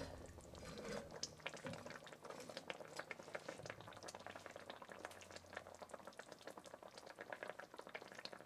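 Sardine curry in red chili gravy simmering in a pot: faint bubbling with many small irregular pops.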